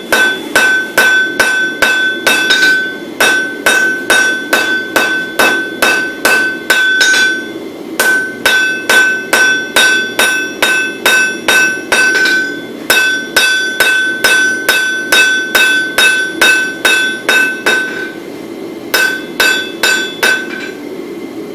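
Hand hammer forging a red-hot wootz (crucible steel) bar on an anvil: runs of blows about three a second, broken by short pauses every four or five seconds, with the anvil ringing a steady high tone between strikes. The blows stop near the end.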